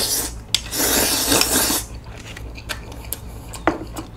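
A person slurping spicy cold buckwheat bibim noodles from a bowl: a short slurp at the start, then a long loud slurp about a second in. Chewing of the noodles and sea snails follows, with small wet clicks.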